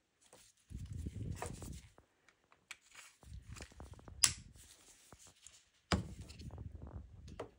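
A plastic BMW key fob handled close to the microphone: rubbing and fumbling with a series of sharp plastic clicks, the loudest a little past the middle and another strong one about six seconds in.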